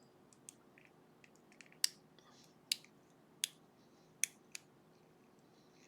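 Small sharp metallic clicks from a shim being worked in around the plug of a lock cylinder while gutting it: five distinct clicks, mostly about 0.8 seconds apart, with softer ticks between.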